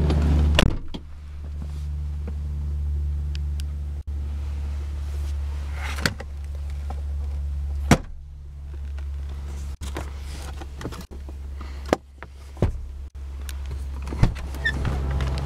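Electric motors of a 2003 Lincoln Town Car's power passenger seat running as the seat is adjusted. The hum starts just under a second in and stops and starts again a few times, with sharp switch clicks in between.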